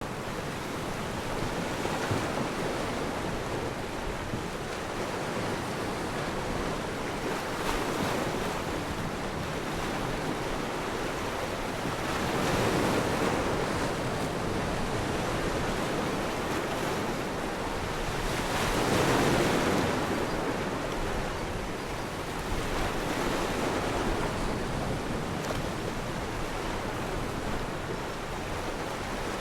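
Atlantic Ocean surf breaking on the shore: a steady wash of waves, with louder surges as bigger waves break about 13 and 19 seconds in.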